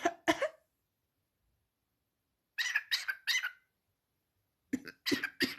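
Pet parrot making short calls in quick groups: three about two and a half seconds in, and a faster run of several near the end.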